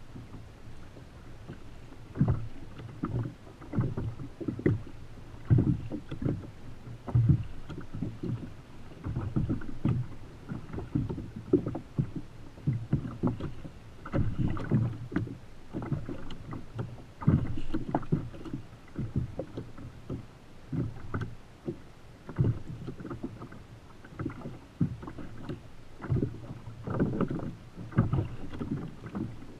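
Choppy sea water slapping and knocking against the hull of a plastic sit-on-top fishing kayak in irregular surges.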